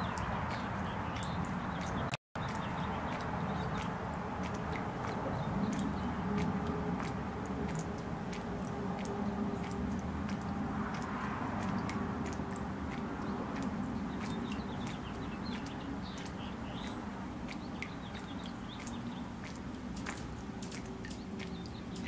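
Small fountain jet splashing and trickling back into a shallow, stone-lined bird bath: a steady watery patter with scattered droplet ticks. The sound cuts out for a split second about two seconds in.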